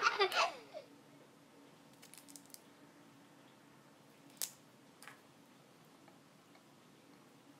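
Mostly quiet: faint clicks and squishes of Orbeez water beads in a glass bowl as a hand digs into them, the clearest click about four and a half seconds in. A loud sound carried over from just before dies away in the first second.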